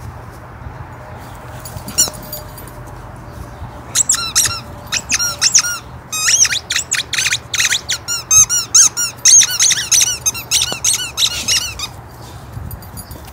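A dog's rubber squeaky toy squeaking over and over: one squeak about two seconds in, then a fast, uneven run of loud, high-pitched squeaks, each rising and falling in pitch, from about four seconds in until shortly before the end.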